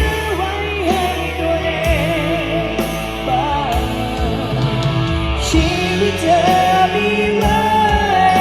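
A rock band playing a song at a sound check, with a wavering sung melody over bass, guitar and drums, and cymbal hits every second or two.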